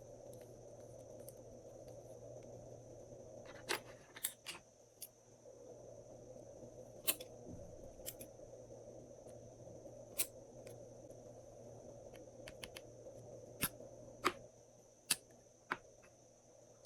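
Glossy slime being worked by hand, giving scattered sharp clicks and pops, several in quick succession about four seconds in and again near the end, over a steady background hum.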